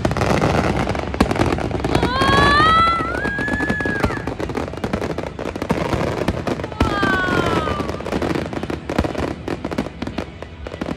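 Aerial fireworks display: dense, rapid bangs and crackling from shells bursting overhead. A high gliding whistle sounds twice, rising and then holding about two seconds in, and falling about seven seconds in.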